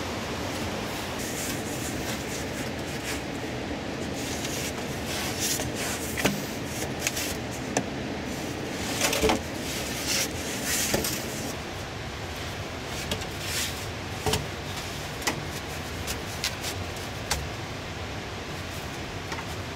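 Lengths of hollow green bamboo knocking against each other and bumping down onto sand as they are laid side by side: about a dozen separate knocks and clacks, irregularly spaced, over a steady hiss.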